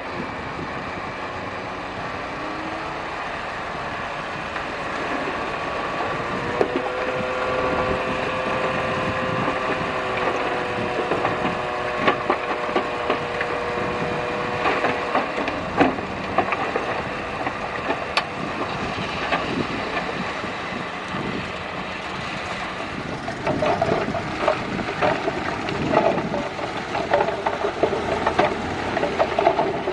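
Bulldozer at work on a fill site: engine running under load with a held whine for several seconds, then a run of metallic clanks and knocks from the machinery near the end.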